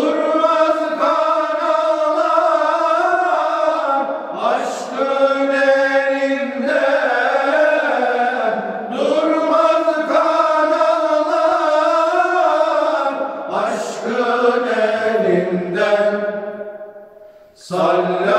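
Male ilahi choir singing a Turkish hymn unaccompanied, in long held, wavering notes; the voices die away about a second before the end and come back in just as it ends.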